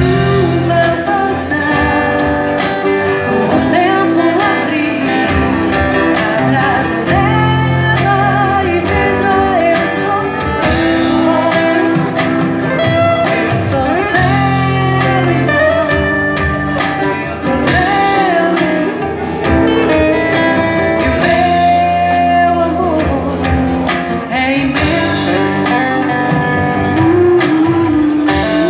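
A woman singing a Brazilian popular (MPB) song into a microphone, with live acoustic guitar and drums accompanying her.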